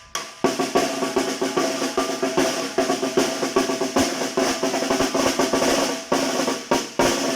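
A tarola (snare drum) played in a fast son rhythm: dense strokes and rolls with accented hits, the drumhead ringing. It starts about half a second in after a brief pause.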